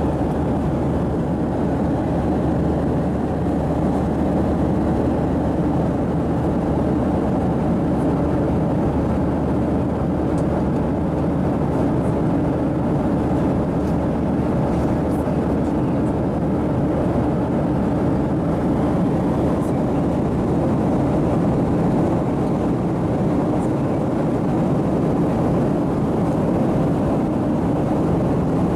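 Steady cabin noise inside a Boeing 737-700 in flight: an even rush of airflow over the fuselage mixed with the drone of its CFM56 jet engines, unchanging throughout.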